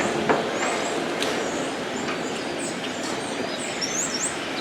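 Steady noise of a vehicle driving slowly through a cow barn, with small birds chirping in short high notes near the end.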